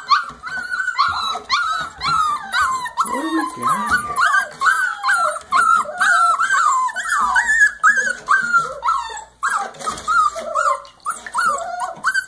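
A litter of Brittany puppies whining and yipping: a steady run of short, high, mostly falling cries, two or three a second, overlapping from several pups.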